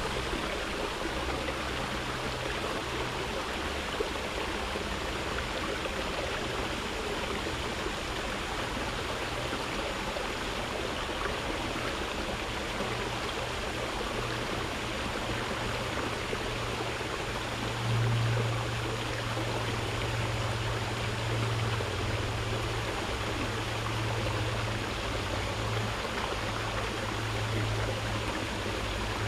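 Water flowing steadily with an even rushing sound. Underneath it is a low hum that gets louder about two-thirds of the way through.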